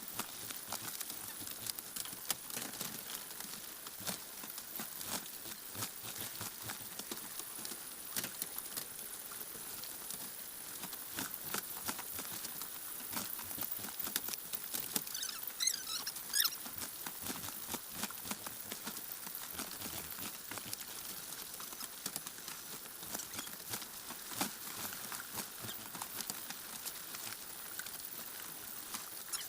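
Many small clicks and scratches of Joper (Ayam Jowo Super) chickens moving and scratching about in their shipping box, with a brief run of high, pitched calls about halfway through.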